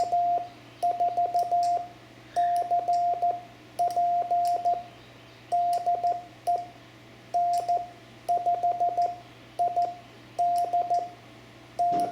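Morse code (CW) sent slowly as one steady mid-pitched tone keyed on and off in groups of dots and dashes, with short gaps between characters. This is the amateur radio operator's transmission asking the other station how it copied and handing the contact back to it.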